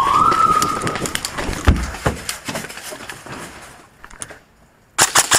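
Siren tone rising in pitch, levelling off and cutting out about a second in, typical of an arena's round-start signal. Scattered clicks and knocks and a low thump follow, then a quick run of sharp cracks near the end.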